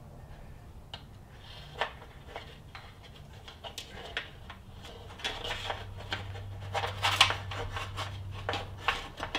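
Wiring harness being pulled through a hole in sheet-metal fender panels by hand: scattered light clicks and rubbing of taped wires against metal, more frequent in the second half.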